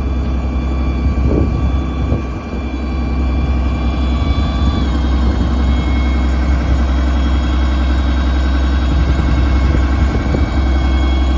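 2012 Freightliner M2 rollback tow truck's Cummins diesel running steadily with the hydraulics engaged, a steady whine from the hydraulic system over the engine hum as the flatbed is worked, operating smoothly. The whine steps slightly down in pitch about five seconds in.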